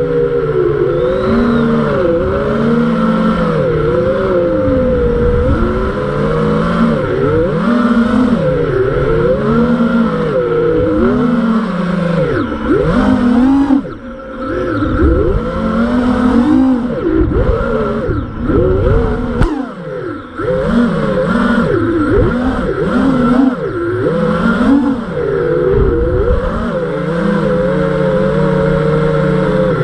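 5-inch FPV quadcopter's brushless motors and tri-blade props (TBS Masterpilot 2400kV on 4S) whining through freestyle flight, the pitch swooping up and down with every throttle punch and chop. The sound drops away briefly twice near the middle, then holds a steadier tone near the end.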